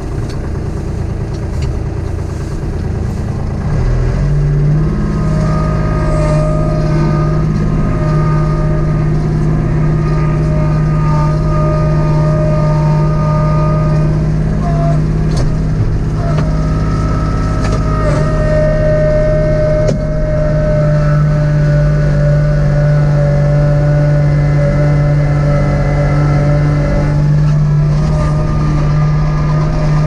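Kubota B2650 tractor's three-cylinder diesel engine running, throttled up about four seconds in to a steady high speed. A higher whine comes and goes over it.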